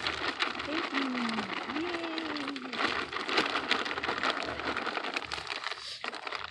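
Potting soil pouring out of a bag onto a garden bed: a dense, gritty rustle full of small crackles as the soil lands and shifts.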